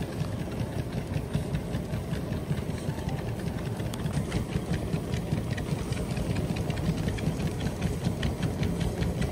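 A motorised dog treadmill running steadily while two poodles trot side by side on its belt, their footfalls ticking in a fast, even rhythm over the motor's hum.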